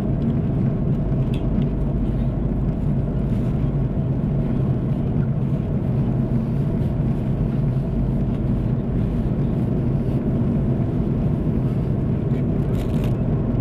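Steady engine and airflow drone inside the passenger cabin of an Airbus A330-300 at cruise, even and unchanging, deep rather than high.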